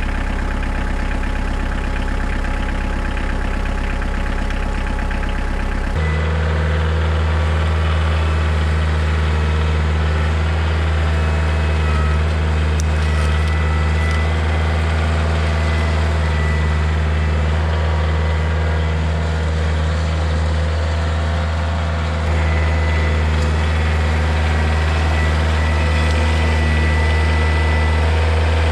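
Kioti compact tractor's diesel engine running steadily, first at idle. About six seconds in the sound changes abruptly to a deeper, stronger hum as the tractor works with its front loader, and a thin high whine comes and goes on top.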